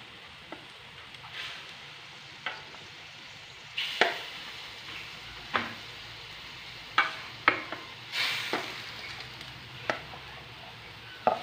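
Raw stingray pieces being scraped from an aluminium bowl into a wok of hot curry: a string of separate metal clinks and knocks, about ten in all, as the utensil strikes the bowl and wok. Under them runs a low sizzle from the curry.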